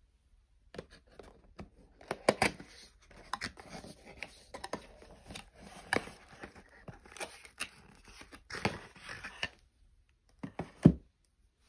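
Paperboard gift-set box being opened by hand: a run of cardboard clicks, scrapes and rustling as the lid flap is pulled open and the insert handled. Near the end come two knocks, the second a loud thud of something set down on the table.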